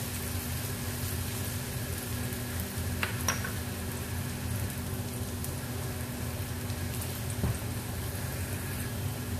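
Chopped garlic sizzling softly in a little oil in a wok, just starting to brown. A couple of light knocks come about three seconds in and one more near the end, over a steady low hum.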